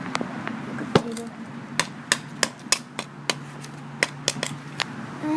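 About a dozen sharp, irregularly spaced clicks and taps, the loudest about a second in: a cut-open aluminium drink can being bent and handled.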